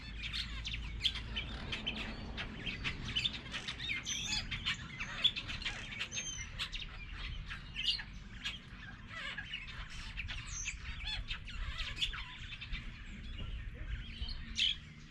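A pack of African wild dogs twittering: many overlapping high-pitched chirps and squeaks, bird-like, over a low steady rumble.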